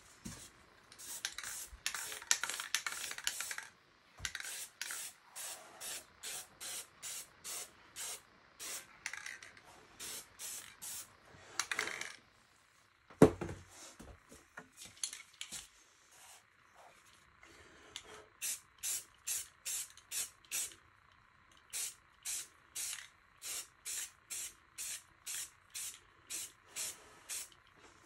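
Spray paint can hissing in runs of short bursts, about two a second, with one longer spray a second or so in. A single sharp knock about halfway through.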